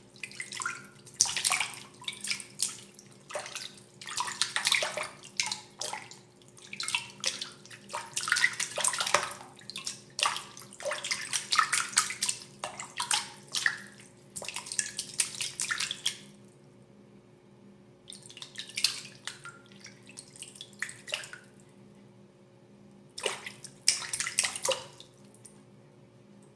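Water splashing and sloshing in irregular bursts, with two pauses in the second half where only a faint steady hum is left.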